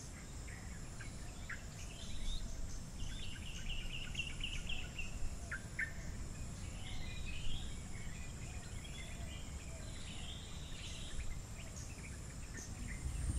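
Birds chirping and calling in short, repeated trills, over a steady high-pitched insect drone and a low rumble.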